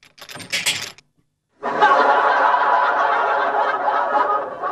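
Audience laughter from a comedy laugh track, a dense, steady wave of many people laughing that starts about a second and a half in. Before it comes a brief clatter.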